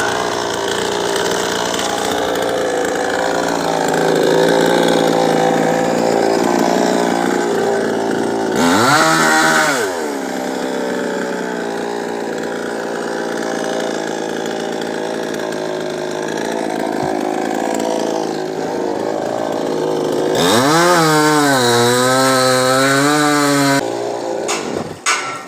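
Chainsaw running steadily while cutting coconut palm wood. It revs up and back down once about a third of the way in, revs high again with a wavering pitch near the end, then stops abruptly. A few sharp knocks follow.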